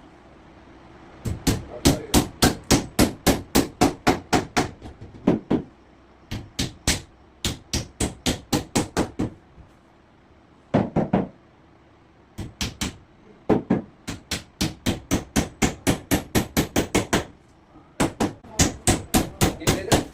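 Hammer driving nails into plywood: quick runs of sharp strikes, about four a second, with short pauses between runs.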